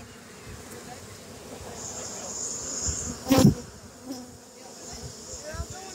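Honeybees from a swarm buzzing around a hive box. A single loud thump comes about three and a half seconds in.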